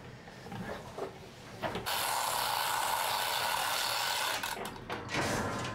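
Manual chain hoist being hauled on: light clinks of chain at first, then from about two seconds in a dense, steady rattle of the chain running through the hoist with ratchet clicking for a couple of seconds, followed by a few separate chain clanks.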